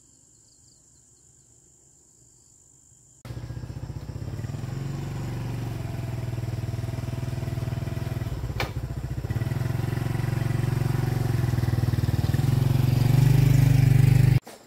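A motor vehicle's engine running steadily, starting abruptly about three seconds in after near quiet and slowly growing louder, then cutting off suddenly just before the end.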